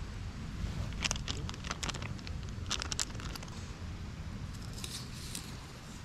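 Foil pouch of nabe soup base crinkling in several short bursts as it is squeezed out, over a steady low rumble.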